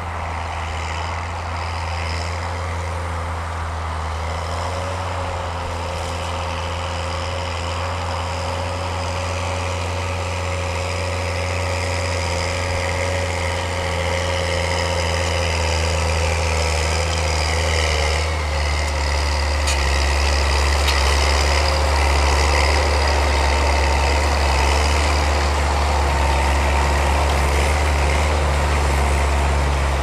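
New Holland T7060 tractor's six-cylinder diesel engine running steadily under load while pulling a reversible plough, growing louder in the second half as the tractor draws near.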